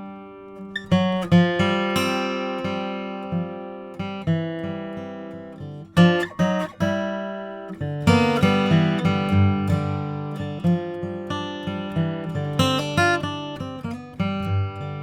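Martin HD-28 dreadnought acoustic guitar, with a Sitka spruce top and rosewood back and sides, played solo with no processing. Chords and single notes are struck and left to ring and fade. The playing turns busier about halfway through.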